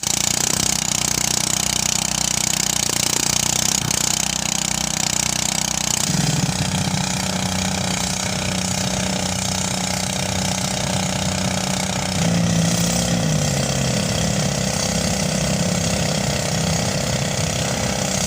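Motorized rice thresher running steadily, its engine and threshing drum making a continuous mechanical drone. The pitch of the drone shifts about six seconds in and again about twelve seconds in.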